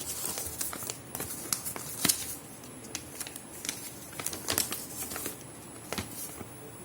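Phone box packaging being opened and handled by hand: scattered crinkling and sharp clicks and taps, the loudest about two seconds in.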